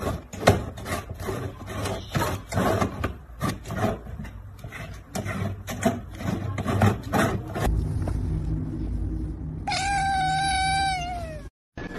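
Irregular knocks and scrapes on a plastic jar as a tabby cat paws at its lid, then after a cut a tabby kitten gives one long meow of about two seconds that falls in pitch at the end.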